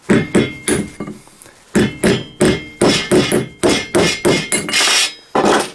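Steel hammer striking a nail held on the steel toe cap of a Sievi safety boot, metal on metal: quick repeated blows, about three a second, each with a short metallic ring, with a pause of nearly a second about a second in.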